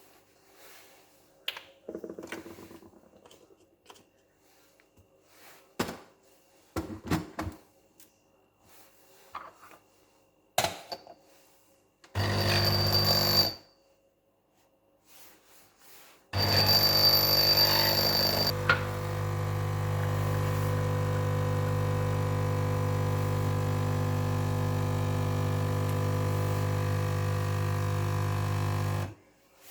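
Clicks and knocks of handling, then an espresso machine's pump buzzing: first a short burst, then a steady buzzing hum for about twelve seconds while the espresso is drawn, cutting off abruptly near the end.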